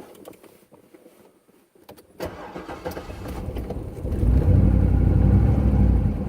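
2005 Corvette C6's LS2 V8 being started: a few light clicks, then the engine starts about two seconds in and runs, louder from about four seconds in. It is idling rough from a misfire, which the owner traced to a broken valve spring.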